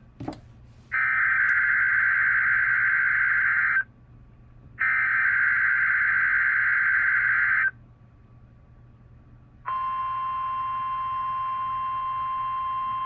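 NOAA Weather Radio weekly-test signalling: two SAME header bursts of buzzy digital data tones, each about three seconds long with a second's gap between them. About ten seconds in, the steady 1050 Hz warning alarm tone starts and holds. A brief click comes at the very start.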